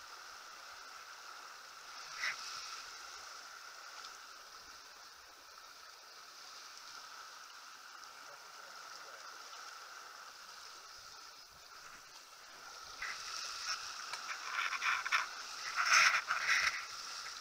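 Water rushing past the hulls of a Farrier F-31 trimaran under sail, a steady hiss. From about thirteen seconds in, louder irregular knocks and rattles join it.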